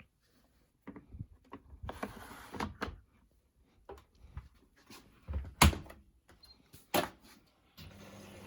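Handling knocks at a front-loading Beko washing machine, with two sharp thuds like its door being shut and latched. Near the end the machine starts up and a steady hum of running and water filling begins.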